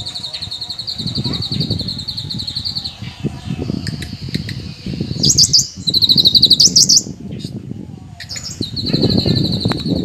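Caged cucak kinoi leafbird singing shrilly. It holds a fast, high trill for about three seconds, gives louder, sharper chirps and trilled phrases around the middle, and returns to the trill near the end. A low rumble of background noise runs underneath.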